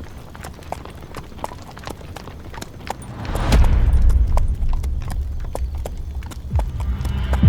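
Horse hooves clattering at a gallop in rapid, uneven strikes, with a low rumble swelling in about three seconds in.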